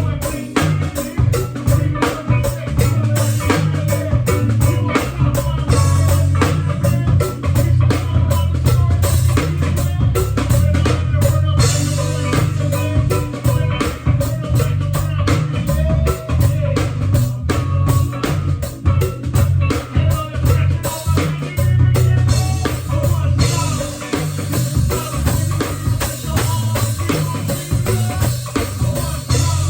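A band playing: a drum kit keeping a steady beat with cymbal strokes, over a heavy bass line and guitar.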